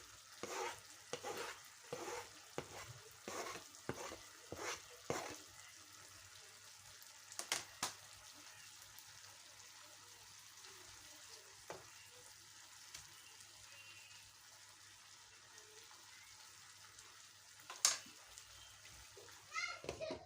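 Wet fry fish simmering faintly in a pan of tomato and onion sauce on low heat. Over the first five seconds there is a quick run of about ten short scrapes, a pair of sharp knocks near eight seconds, and one loud knock near the end.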